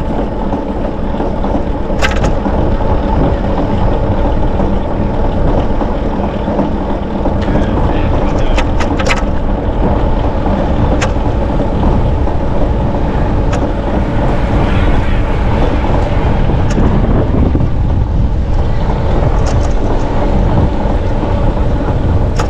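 Wind rushing over the microphone of a camera on a moving bicycle: a loud, steady low rumble, with a few short clicks or knocks from the ride.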